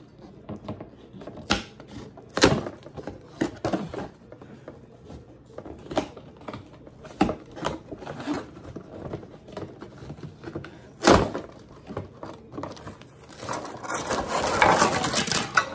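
Cardboard toy box being handled and opened by hand: scattered taps, knocks and rustles of the cardboard, with a sharper knock about eleven seconds in. Near the end comes a longer stretch of scraping and rustling as the cardboard insert is slid out of the box.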